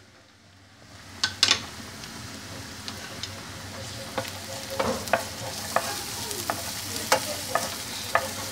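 Diced red onion frying in a little oil in a nonstick frying pan, a steady sizzle that swells after about a second, with a wooden spoon clicking and scraping against the pan now and then as it is stirred. The onion has only just gone in and is starting to soften.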